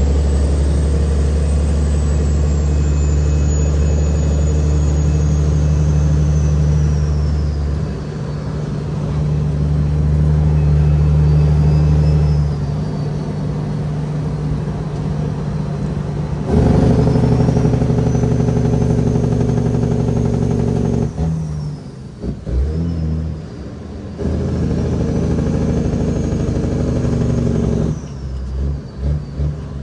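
Caterpillar 6NZ diesel engine of a heavily loaded Kenworth W900L pulling under load, with a high whistle that rises and falls with the throttle. The engine note drops off briefly several times, the longest break about 21 seconds in.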